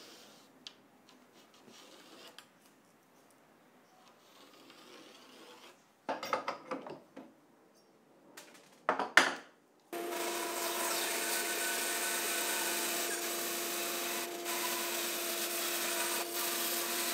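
Quiet handling of wood and a pencil, with short scraping bursts about six and nine seconds in. From about ten seconds a bandsaw runs steadily with a hum, cutting a curve in a long reclaimed hardwood apron.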